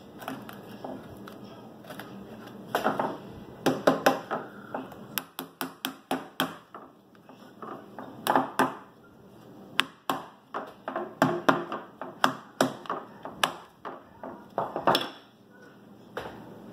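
Claw hammer tapping small nails into a wooden beehive frame to hold the wax foundation in place. The sharp taps come in several quick runs.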